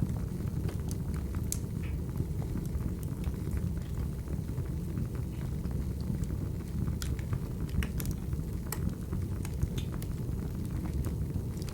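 Crackling wood fire: a steady low rumble with scattered sharp pops and snaps.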